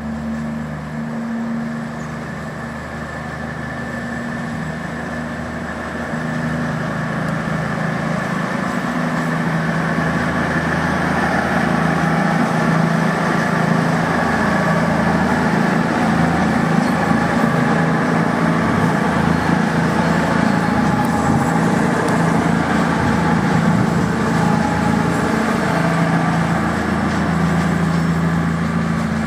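CrossCountry Voyager diesel multiple unit, its underfloor Cummins diesel engines running with a steady hum as it pulls out and passes, growing louder about six seconds in.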